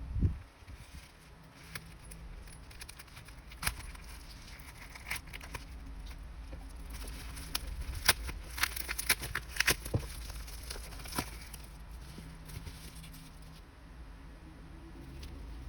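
Hands unpacking an album and its packaging: a low thump at the start, then scattered clicks, taps and crinkles, busiest from about eight to ten seconds in.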